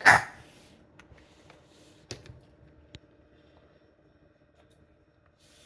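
A brief loud sound at the very start, then a few scattered soft clicks and taps of plastic fidget toys being handled, over a faint steady hum.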